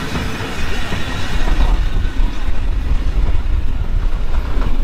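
Vintage passenger carriages, including a teak-bodied Metropolitan Railway coach, rolling slowly past along the platform as the steam-hauled train comes in, with a steady running noise and a low rumble that grows louder about a second in.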